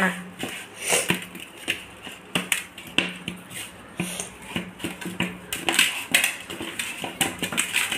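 Hand kneading yeasted maida pizza dough in a stainless steel bowl: irregular soft knocks and scrapes of the dough and hand against the metal.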